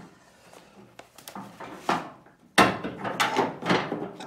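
Tailgate handle and latch hardware being forced and worked into the handle opening of a Chevrolet C10 tailgate with a screwdriver. A few small clicks come first, then about four loud scraping, rattling strokes in the last second and a half.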